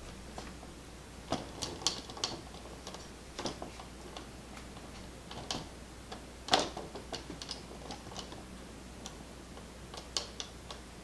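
Scattered light clicks and taps in irregular clusters, from small objects being handled close by.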